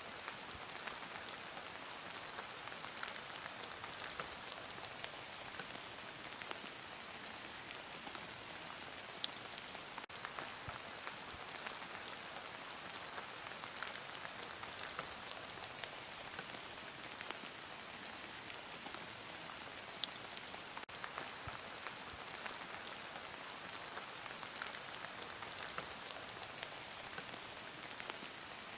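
Steady heavy rain falling on a surface, an even hiss with many small drop ticks.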